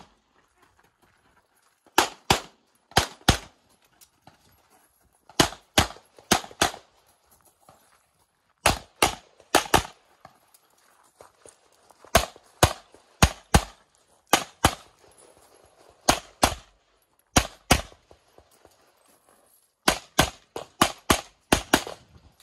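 Tanfoglio pistol fired in quick strings of two to four shots, with pauses of a second or two between strings as the shooter moves between positions.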